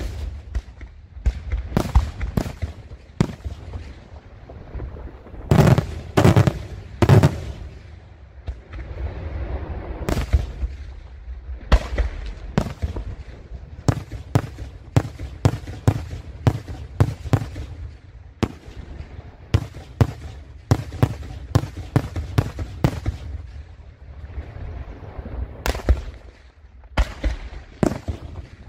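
Daytime fireworks display: aerial shells and salutes bursting in a rapid, irregular string of sharp bangs, with a rumble between them and a loud cluster of bangs about six to seven seconds in.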